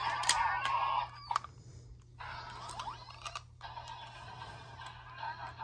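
Yo-kai Watch toy playing electronic sound and music through its small speaker after a Yo-kai medal is inserted, with a few sharp clicks.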